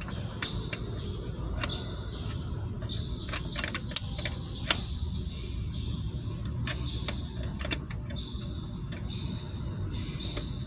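A 19 mm wrench clicking and clinking on the nuts of a newly fitted fuel feed pump as it is tightened, a string of irregular sharp metal clicks over a steady low background rumble.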